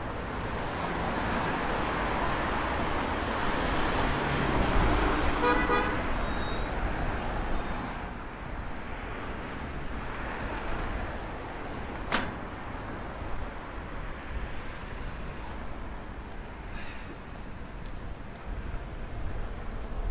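Street traffic: a passing vehicle grows louder over the first few seconds, with a short car horn toot about five seconds in. A brief high-pitched squeak near eight seconds is the loudest sound, and a sharp click follows about twelve seconds in.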